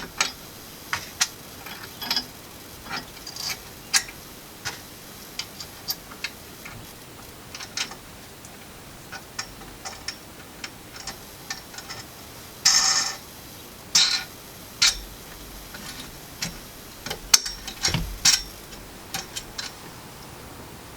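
Irregular metal clicks and clinks from the parts of a hand grain mill being handled and its plate adjustment tightened, with a couple of longer scrapes a little past the middle.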